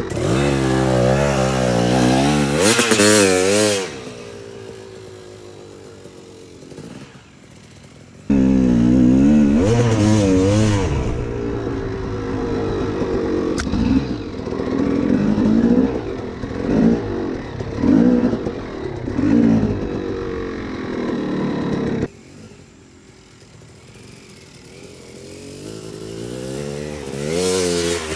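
250 cc two-stroke dirt bike engine being ridden, revving up and down with the throttle. It drops back to a quieter low twice, then climbs again near the end.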